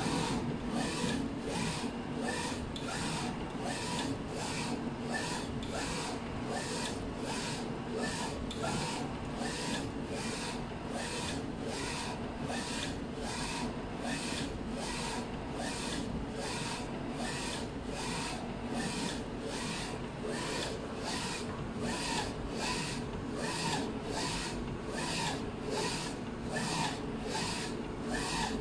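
UV flatbed inkjet printer running a print job, its print-head carriage shuttling back and forth and making a regular swishing pulse about twice a second. Under it runs a steady machine hum.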